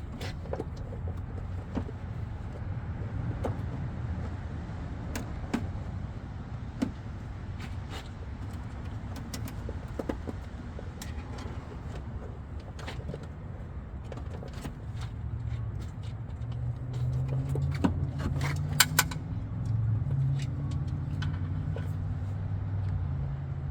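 Hands working plastic zip ties and clips in a car's engine bay: scattered small clicks and rattles, with a quick run of clicks about three quarters of the way through, over a steady low rumble.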